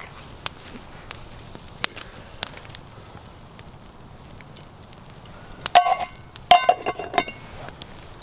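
Wood campfire crackling with scattered sharp pops. About six seconds in, a few loud metallic clanks and ringing as a metal lid is set on a metal camping pot.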